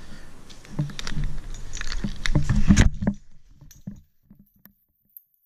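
Tree-climbing hardware at the start of an SRT rope ascent: the rope is pulled through a Hitch Hiker and a CMI chest roller, with clicking, knocking and metal jangling, and the rope and clothing rustle. The sound cuts off abruptly about four seconds in.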